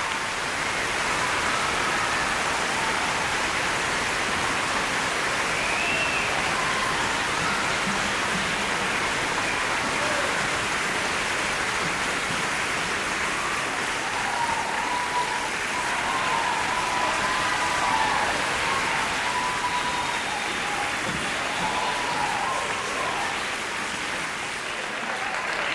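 Long, steady applause from many people clapping, with a few faint voices mixed in.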